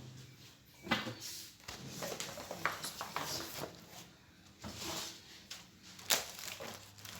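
Fridge shelves, drawers and containers being handled and wiped during fridge cleaning: soft rubbing and rattling with scattered light knocks, the sharpest about a second in and about six seconds in.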